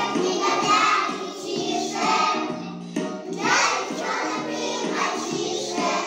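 A group of young children singing together over a recorded musical accompaniment.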